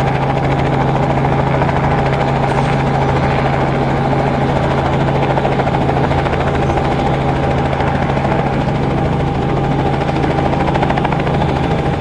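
Remote-controlled agricultural application helicopter running steadily: a continuous engine and rotor drone with a strong, unchanging low hum.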